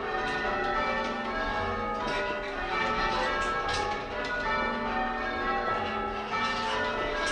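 Church tower bells rung in changes: full-circle bells struck one after another in a continuous, even succession of overlapping ringing tones, heard from the ringing chamber below the bells.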